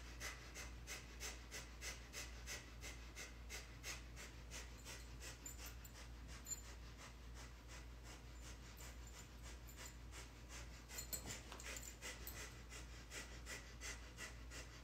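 Breath of fire: fast, rhythmic pumped breaths driven from the navel, about three a second, faint and steady.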